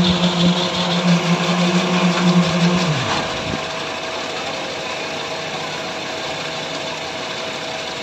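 Slipform concrete paver's machinery running with a steady hum that winds down in pitch and cuts out about three seconds in. A lower, quieter steady machine hum carries on after it.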